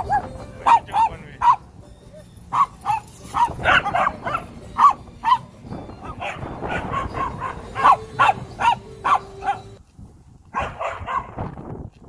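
Small Shih Tzu–Yorkie mix dog yapping in quick runs of short, high barks during rough play with other dogs, with a brief pause about ten seconds in.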